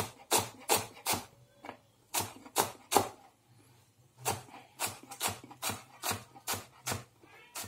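Chef's knife chopping fresh coriander, stalks and all, on a plastic chopping board: steady knocks of the blade on the board, about two to three a second, with a pause of about a second midway.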